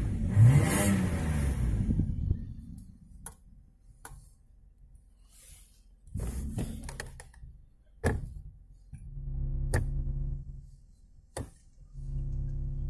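Toyota 1JZ-GE inline-six revving, its pitch rising and falling, during the first two seconds, then dropping back. About six to eight seconds in come clicks and knocks as the automatic gear selector is moved through its gate, and later a steady hum, twice.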